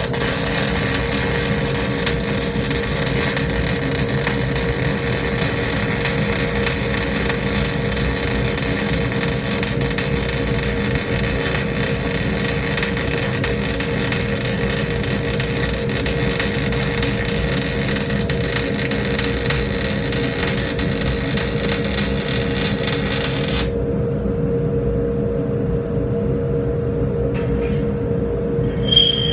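Electric arc welding on steel: a dense, steady crackle that cuts off abruptly after about 24 seconds, over a steady hum. Near the end there is a single sharp metallic clink that rings briefly.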